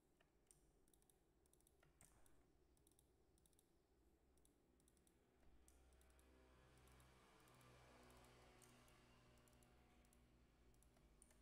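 Near silence with scattered faint computer mouse clicks. A faint low hum comes in about five and a half seconds in.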